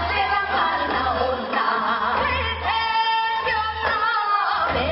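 Korean Seodo sori folk singing: women singing with a wavering, ornamented vocal line and a long held note about halfway through, accompanied by a traditional Korean ensemble that includes a haegeum fiddle.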